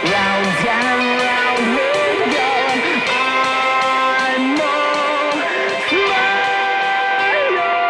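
Music led by electric guitar, playing held notes that bend and slide in pitch, over a steady high ticking beat of about four a second.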